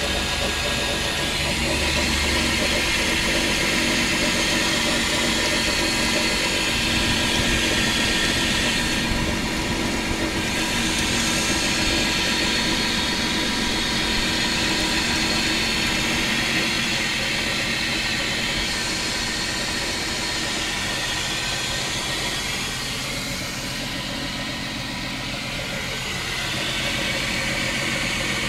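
Chrysler 300M's 3.5-litre V6 engine running steadily at idle with a persistent knocking noise.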